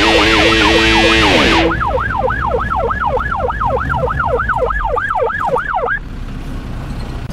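Fire engine siren on a fast yelp, sweeping up and down about four times a second; it stops about six seconds in. Background music plays over it and cuts out about one and a half seconds in.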